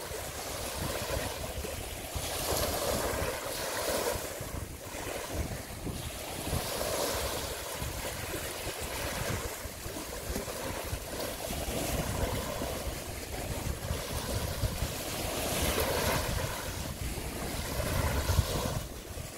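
Small waves washing onto a shallow beach, swelling and easing every few seconds, with wind buffeting the microphone.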